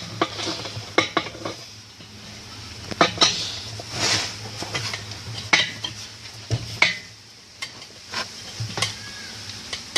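Metal tool clinking and scraping against the nut that holds a washing machine's drum while it is tightened: irregular clicks and short scrapes.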